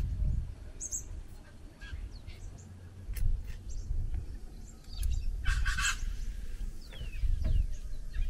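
Birds chirping and calling in the background over a low, uneven rumble, with a few sharp metal clicks from hand tools at the caravan's wheel hub as the cover cap is worked off.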